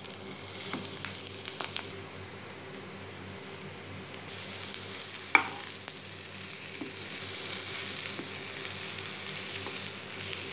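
Turmeric-coated eggplant slices sizzling in a little oil in a frying pan, the sizzle getting louder about four seconds in. A metal spoon clinks once against the pan as the pieces are moved.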